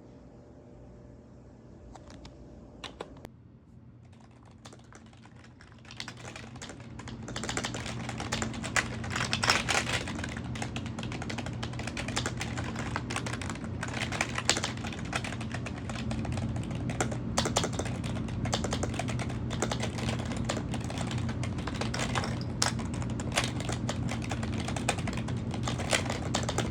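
Computer keyboard being typed on: a few scattered key clicks at first, then fast, continuous typing from about six seconds in.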